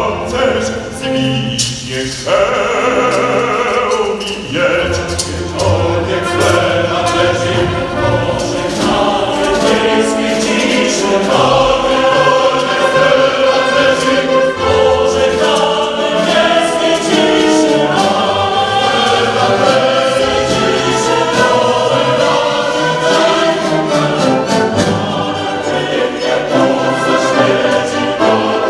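Symphony orchestra and a chorus performing live opera, the voices and instruments sounding together without pause.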